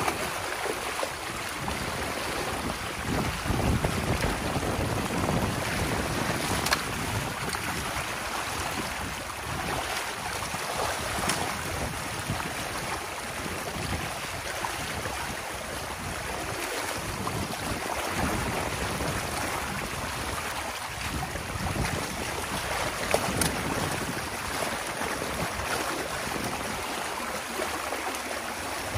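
Water rushing steadily through a breach in a beaver dam. A few sharp clicks come from a tool being worked into the dam's sticks and mud.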